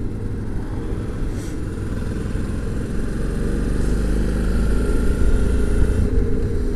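Motorcycle riding at steady road speed: low engine drone mixed with wind and road noise, growing slightly louder in the second half.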